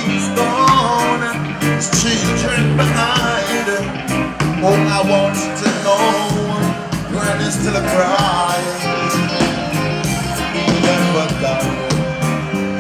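Live reggae band playing: a male singer singing into a microphone over electric guitars, drums, bass and keyboards, with a steady beat.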